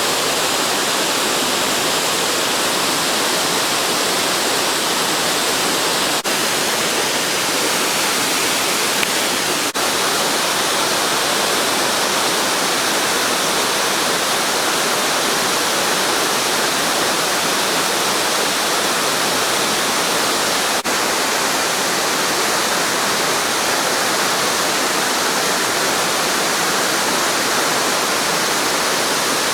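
Waterfall, steady rushing roar of falling water.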